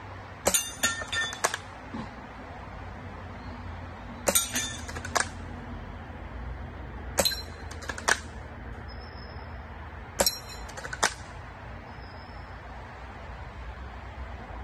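Four shots from a lever-action BB gun, about three seconds apart. Each shot is a sharp report followed by metallic pings and clinks as the BB strikes the steel spinning targets.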